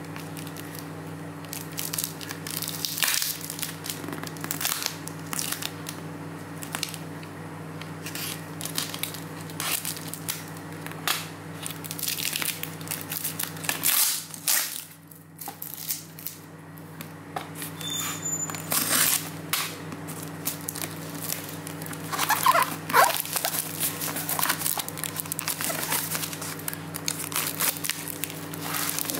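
Clear plastic packing tape being peeled and torn off a cardboard box, crackling and crinkling in irregular bursts, with the cardboard flaps rubbing and scraping as the box is handled. A steady low hum runs underneath.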